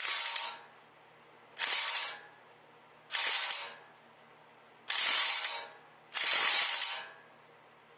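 Bauer heavy-duty corded electric impact wrench on a stuck 35 mm CV axle nut, run in five short trigger bursts, the last two a little longer.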